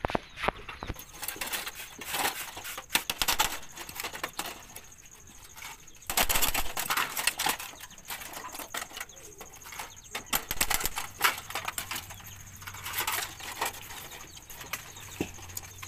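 Thin rusty galvanized iron sheet being handled and worked, rattling and scraping, with scattered sharp taps and clicks.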